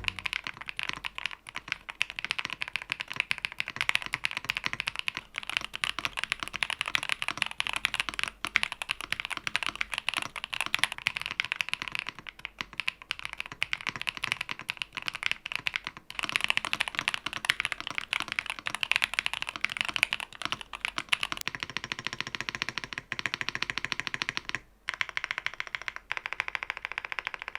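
Typing test on a YUNZII AL65 keyboard (silicone gasket-mounted, polycarbonate plate, stock PE, plate and PCB foam) fitted with freshly swapped-in switches. Rapid continuous keystrokes, with brief pauses about 8, 12, 16 and 25 seconds in.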